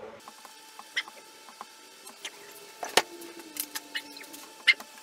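Irregular small metal clicks and scratchy creaks as a waxed steel sling swivel stud is turned by hand into a wooden rifle stock and handled, with sharp louder clicks about three seconds in and near the end.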